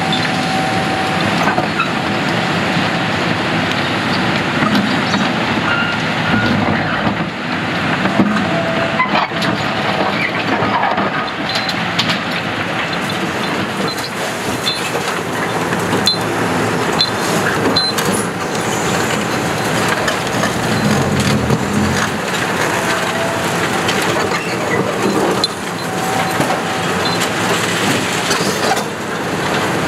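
Kiesel KTC 390 excavator at work in demolition: its diesel engine runs steadily under load while its sorting grab crunches and clatters through rubble, with many short knocks and a few brief high squeaks.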